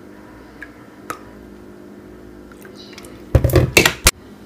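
Creamer poured from a plastic flip-top bottle into a mug of coffee, quiet apart from a couple of small clicks. About three seconds in comes a second of loud plastic handling noise, ending in a sharp snap as the flip-top cap is shut.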